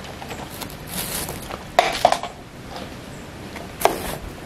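Light clatter of small objects being handled: a brief rustle about a second in, two sharp clicks at about two seconds, and another click near the end.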